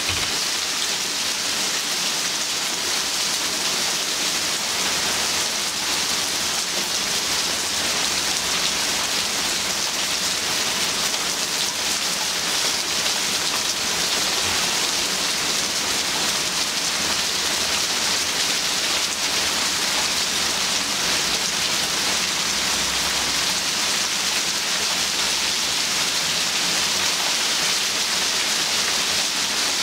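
Heavy rain mixed with hail coming down in a steady, dense hiss on the ground and plants.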